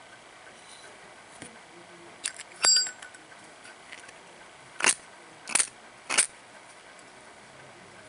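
Zippo lighter being handled, metal on metal: a few light clicks, then a sharp click with a brief metallic ring nearly three seconds in, followed by three short scraping strokes about two-thirds of a second apart.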